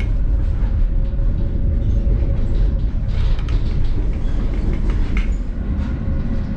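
Tram running, heard from inside the car: a steady low rumble with a faint steady whine and a few sharp clicks.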